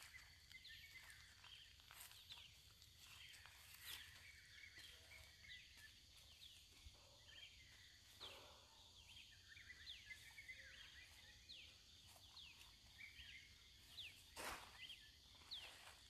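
Faint dawn chorus of birds: many short, quick chirps sliding downward, repeated throughout, over a steady high-pitched hum. A brief rush of noise about fourteen seconds in.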